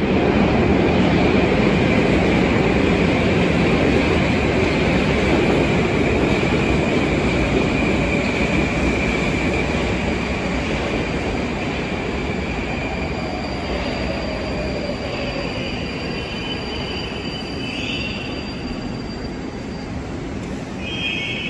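81-775/776/777 'Moskva-2020' metro train pulling into a station and slowing down. Its running noise is loud at first and slowly dies away, with a steady high whine that fades out about halfway through and a couple of short high tones near the end.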